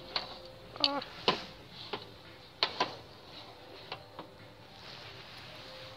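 Ceramic figurines and small goods being handled on a shop shelf: a string of sharp clicks and knocks in the first four seconds, over a faint steady hum.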